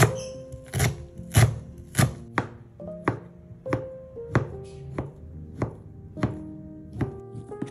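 Kitchen knife chopping onion on a plastic cutting board, then slicing smoked beef, the blade striking the board about twice a second; the onion chops in the first two seconds are the loudest. Soft background music with held notes runs underneath.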